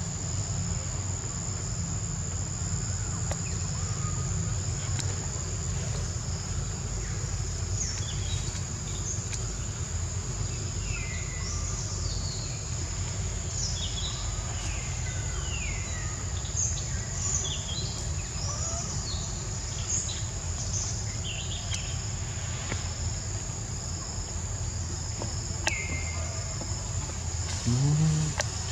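Insects droning with a steady high-pitched tone, over a steady low rumble. Scattered short chirps sliding down in pitch come through in the middle stretch, and a brief low rising sound comes near the end.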